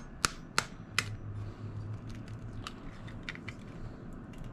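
Small eggs cracked against a stainless steel mixing bowl: a few sharp taps in the first second, then lighter clicks of the shell being broken open over the bowl.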